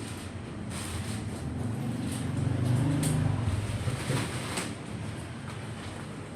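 Low engine hum of a passing motor vehicle, swelling to its loudest about three seconds in and then fading, with scattered light clicks and rustles.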